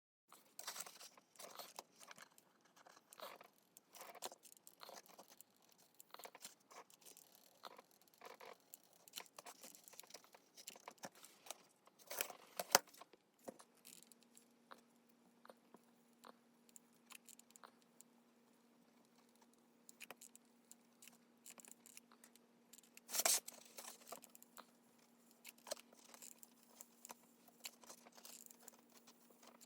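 Quiet, scattered small clicks, scrapes and rustles of hand work on plastic interior trim, with a louder click near the middle and another about three-quarters of the way through. A faint steady hum comes in about halfway.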